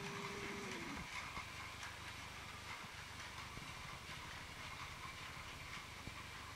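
Battery-powered Plarail toy trains running on plastic track: a steady small-motor whine with light clicks from the wheels over the track. A lower hum falls in pitch and stops just under a second in.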